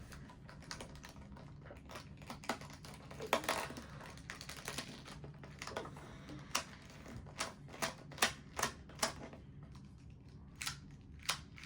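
Plastic pieces of a 2x2 Rubik's cube clicking as it is handled, turned and snapped back together: a series of irregular sharp clicks, coming faster in the second half.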